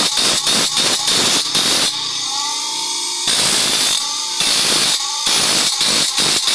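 Bench grinder's abrasive wheel grinding the teeth of a handsaw in quick rasping strokes, about four a second. The strokes break off twice for about a second, leaving a fainter whine of the spinning wheel.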